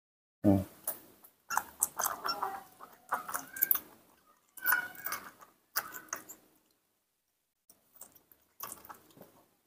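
Baby monkey suckling from a milk bottle, making small squeaks and sucking noises in short, irregular bursts with pauses between them.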